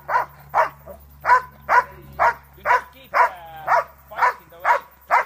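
Dog barking over and over at an even pace, about two barks a second. A short whine cuts in about halfway through.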